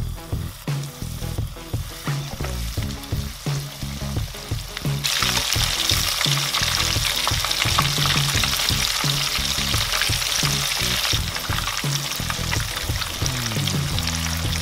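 Cheetos-crumb-coated chicken tenders deep-frying in a small pan of oil, a dense sizzling with fine crackles that grows louder from about five seconds in and eases near the end, over a background music bass line.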